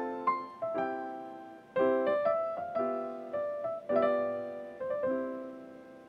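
Background music: a piano-like keyboard playing gentle chords, each struck and left to fade.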